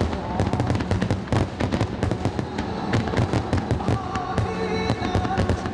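Dense barrage of aerial firework shells bursting overhead: a rapid, continuous stream of bangs and crackling with no let-up.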